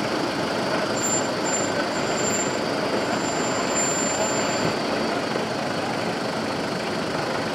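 Helicopter engine running steadily on the ground, a constant mechanical noise with no change in pitch.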